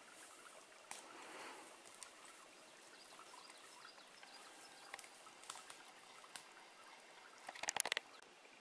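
Quiet forest ambience with a faint background hiss and scattered small ticks. About three-quarters of the way through comes a short burst of loud, close cracking clicks.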